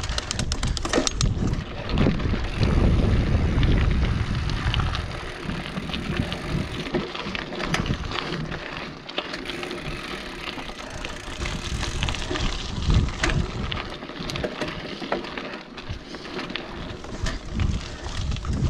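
Mountain bike riding down a dirt forest singletrack: knobby tyres rolling over dirt, leaves and roots, with frequent sharp rattles and clicks from the bike over bumps. A low rumble is loudest a few seconds in.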